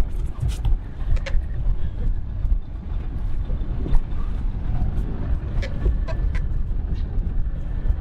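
Wind buffeting the microphone on an open boat at sea, a steady low rumble, with a few faint clicks.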